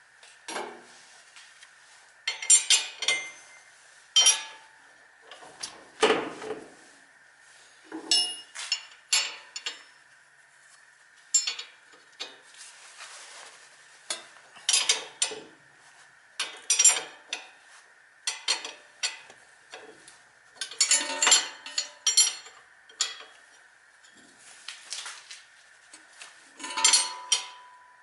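Metal hand tools and parts clinking and knocking in short, irregular clatters, one every second or two.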